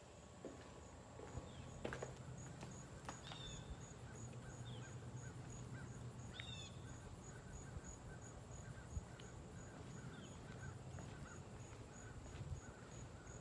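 Faint outdoor ambience: an insect chirping steadily about twice a second, a few short falling bird chirps, and a low steady hum underneath.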